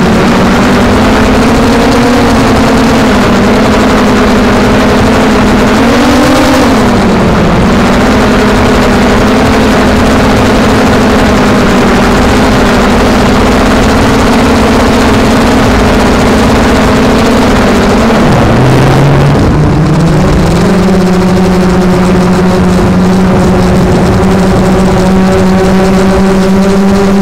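Electric motor and propellers of a camera drone, heard from on board: a loud, steady buzzing whine. The pitch dips briefly about seven seconds in, drops again around eighteen seconds, then holds a little lower to the end.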